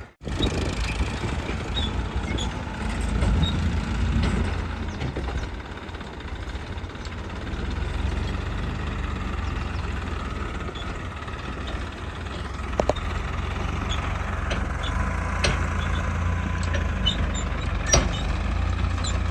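JCB 3DX backhoe loader's diesel engine running steadily at work, with a few sharp knocks in the second half.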